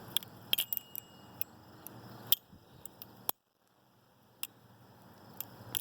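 Balisong being flipped and handled: irregular sharp clicks and clacks of the handles and pivot, about a dozen over several seconds, with a brief silent gap about halfway through.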